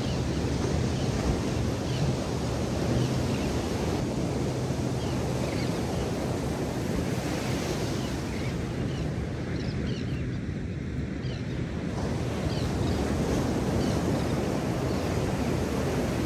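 Ocean surf breaking and washing up the beach in a steady rush, with wind buffeting the microphone.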